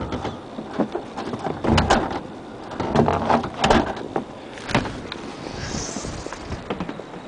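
Irregular knocking and clattering, several sharp knocks close together, with a short hiss near the end.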